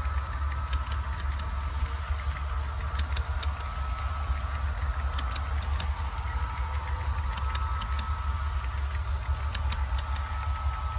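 Model train running on the layout track: a steady low hum and a steady motor whine, with irregular sharp clicks as the wheels pass over rail joints.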